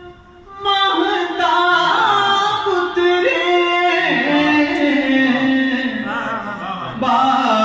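A man singing a ghazal into a handheld microphone: after a brief pause at the start, the voice moves through wavering, ornamented runs and settles on a long held note near the end.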